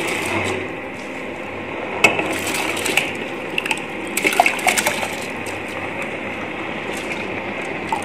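Soaked basmati rice dropped into a steel pot of boiling spiced water, with a cluster of splashes and sharp clicks between about two and five seconds over a steady hiss.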